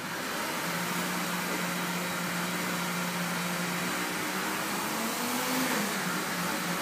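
An appliance starts running suddenly, a steady hiss with a low hum under it that wavers in pitch near the end.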